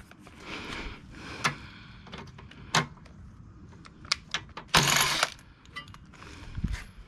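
Metal hand tools and engine parts clinking and knocking during disassembly, in scattered single clicks. About five seconds in there is one louder burst of noise lasting about half a second.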